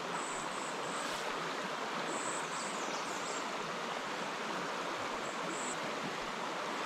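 Steady rush of river water flowing past, with a few faint, short, high-pitched chirps now and then.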